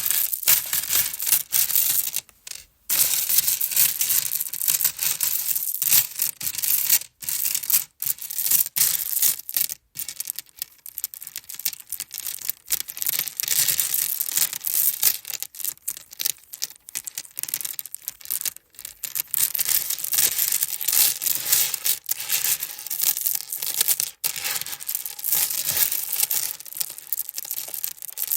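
Necklaces being handled, their chains or beads rattling and jingling continuously in a dense mass of tiny clicks, with a few short pauses.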